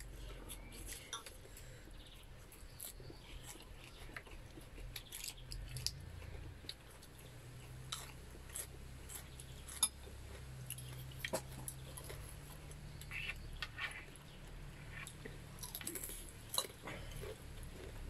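A person chewing food by mouth, with scattered short clicks and smacks of eating over a low, steady background rumble.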